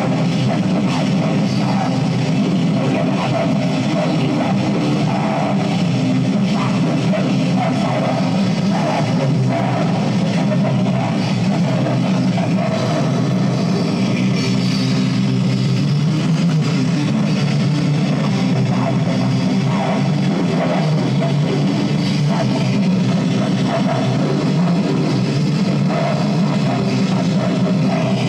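Black metal demo recording: electric guitars and a drum kit playing continuously at a steady level.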